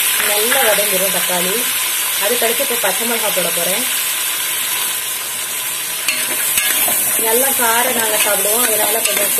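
Chopped onions and tomatoes sizzling in hot oil in an aluminium pressure cooker, stirred by hand now and then. A wavering pitched sound comes and goes in the background.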